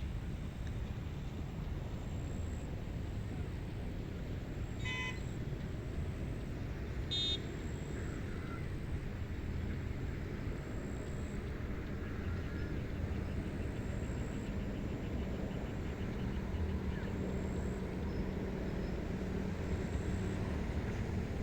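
Wind blowing over an open rice paddy, a steady low rumble with no words, broken twice by a brief high-pitched tone about two seconds apart.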